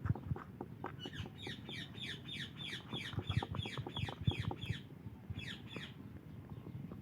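Parrot giving a rapid run of short chirps that each fall in pitch, about four or five a second, pausing briefly and resuming near the end. Low knocks and clicks run underneath.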